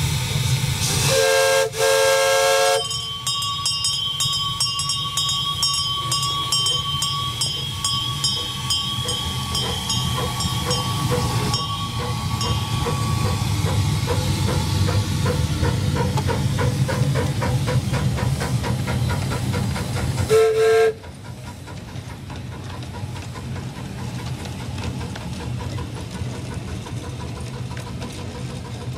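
Live steam miniature locomotive running, its steam whistle blowing two blasts about a second in, the second one longer, and one short toot about twenty seconds in, over a steady rumble of the engine and wheels on the rail.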